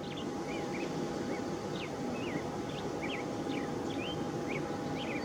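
Small birds chirping in quick short calls, about three a second, over a steady low rumble.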